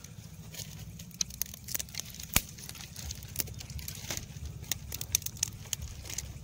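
Small wood campfire crackling, with irregular sharp pops of burning twigs, the loudest about two and a half seconds in.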